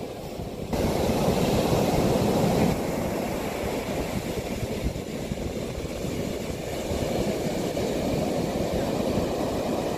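Ocean surf breaking and washing up the beach, with wind rumbling on the microphone. It grows louder about a second in.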